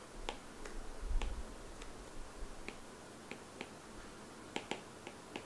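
Faint, irregular clicks of a stylus tapping a tablet while handwriting, a dozen or so light taps.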